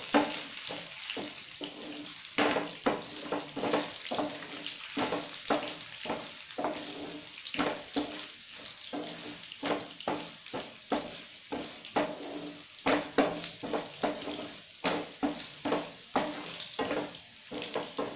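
Garlic, urad dal and chana dal sizzling in hot oil in a nonstick frying pan, with a wooden spatula stirring and scraping against the pan in quick, irregular strokes.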